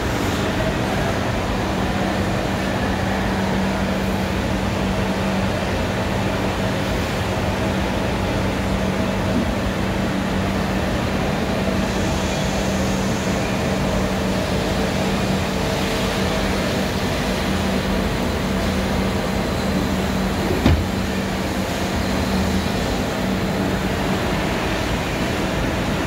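Steady machinery hum with a constant low drone, joined about halfway by a higher steady tone. A single sharp knock comes about three quarters of the way through.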